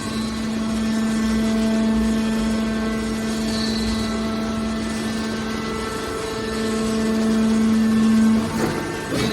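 Hydraulic metal baler running: a steady mechanical drone with a strong constant hum, growing a little louder about two-thirds of the way through.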